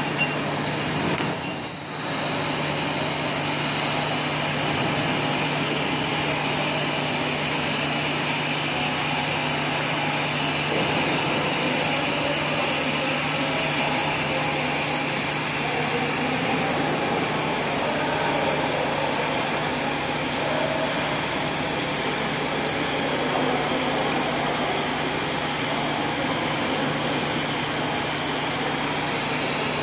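TIG welding arc on 316 stainless steel pipe, a steady hiss that starts about two seconds in and holds even, over a steady low hum.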